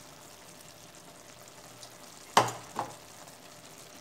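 Ground-beef picadillo sizzling faintly in a clay cazuela, with two sharp knocks a little past halfway, half a second apart: a spoon striking the clay pot as stirring begins.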